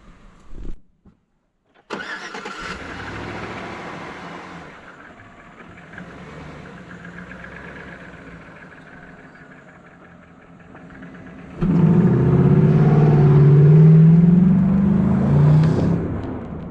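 Chevy Silverado pickup's engine starting about two seconds in and running steadily. It gets louder with a rising and falling pitch near the end, as it is revved.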